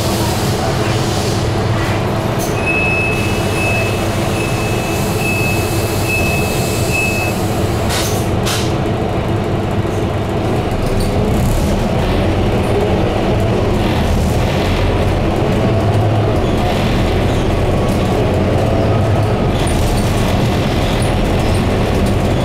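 Scania K230UB double-decker bus heard from its upper deck: the diesel engine and drivetrain running steadily with the bus under way, growing a little louder about halfway through. A thin high tone sounds for a few seconds near the start, and a couple of sharp clicks or rattles come about a third of the way in.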